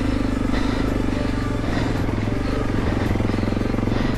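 Honda CRF300 Rally's single-cylinder four-stroke engine running steadily as the motorcycle rides along a dirt track.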